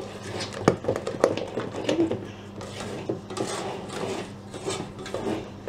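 Spatula scraping and knocking against a stainless steel mixing bowl as cake batter is stirred by hand, with scattered sharp clicks and short scrapes. The last of the flour is being worked into the creamed mixture.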